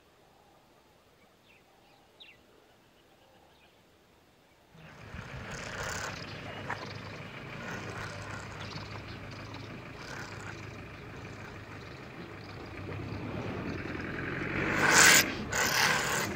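A vehicle engine starts running about five seconds in and keeps going. Near the end come two loud, harsh bursts as a lioness lunges at a honey badger.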